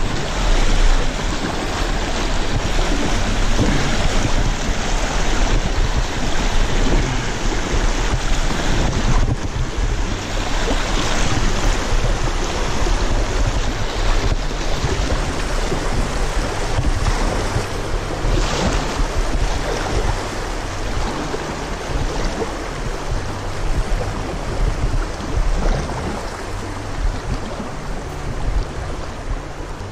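Shallow river riffle rushing and splashing around a kayak as it floats through broken white water, a steady rush of water that eases slightly near the end.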